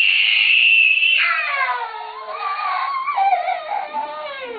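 A young boy screaming in pain from a crushed, bleeding fingernail: one high scream held for about a second, then a long wavering wail that slides down in pitch.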